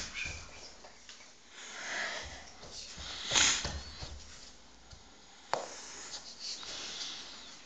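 A few breathy, sniff-like puffs close to the microphone, the loudest about three and a half seconds in. About five and a half seconds in comes a single sharp tap as a slice of melon lands on the laminate floor.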